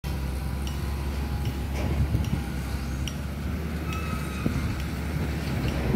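Trackside outdoor ambience: a steady low rumble, with faint short high chirps now and then.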